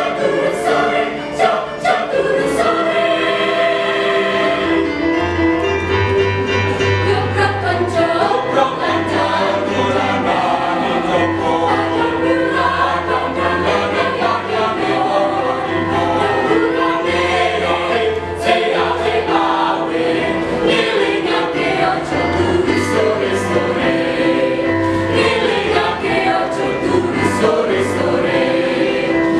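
A mixed choir singing in several parts, with a low bass part coming in about five seconds in under the upper voices.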